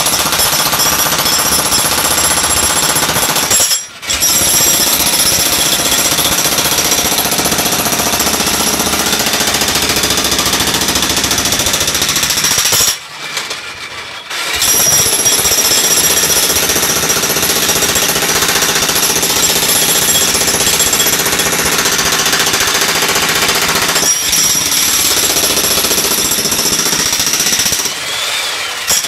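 Electric jackhammer pounding and breaking up a concrete slab in a continuous rapid hammering. It stops briefly about 4 seconds in and for a second and a half around 13 seconds, then eases off near the end.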